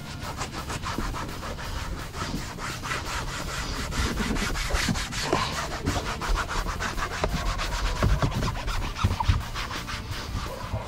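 Brisk back-and-forth scrubbing, several strokes a second, over a low steady rumble.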